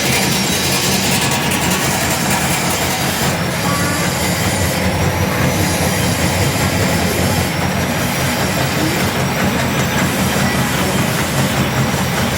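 Pilus-making machine running steadily: a continuous, loud mechanical noise with a low hum underneath.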